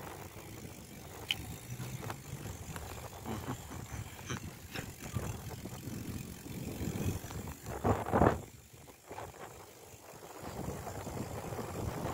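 Bicycle being ridden on a concrete footpath: a steady low tyre rumble with small rattles and clicks from the bike. About eight seconds in there is a brief louder rush, after which it goes quieter for a couple of seconds.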